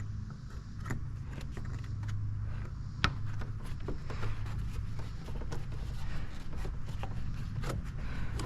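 Scattered clicks, knocks and small rattles of someone handling things in a car, with a sharp click about three seconds in, over a steady low hum.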